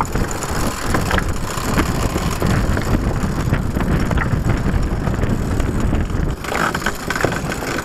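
Wind buffeting the microphone on the open deck of a sailing yacht at sea: a steady, loud low rumble with a few light knocks.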